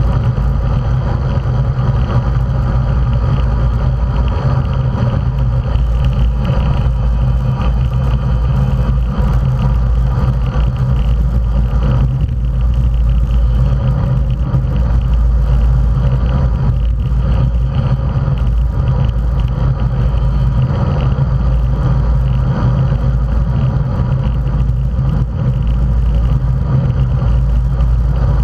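Steady rush of wind and road noise on a bicycle-mounted camera moving at race speed within a group of road cyclists, heaviest in the low rumble.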